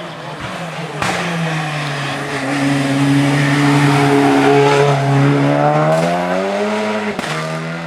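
Race car engine at high revs. The engine note holds steady, rises about six seconds in, then drops sharply about seven seconds in.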